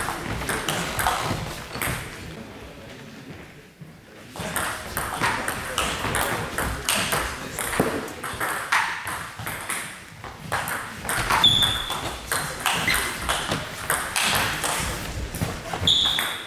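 Table tennis ball clicking repeatedly off bats and table during rallies, with a quieter stretch a few seconds in.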